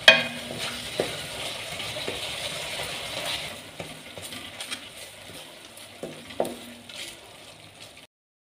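Onion-tomato masala sizzling in oil in a metal pot while a spatula stirs it, with a few sharp knocks of the spatula against the pan. The sizzle thins out after about three and a half seconds, and the sound cuts off abruptly near the end.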